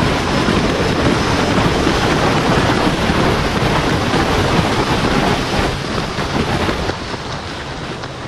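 Riding wind buffeting the microphone on a moving Royal Enfield Interceptor 650, with the motorcycle's 648 cc parallel-twin engine running underneath. The rush eases off over the last couple of seconds.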